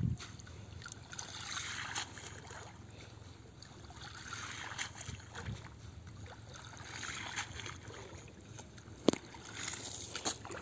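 Water swishing and dripping as a wet cast net is pulled out of shallow river water by hand, in uneven swells. A single sharp click about nine seconds in is the loudest sound.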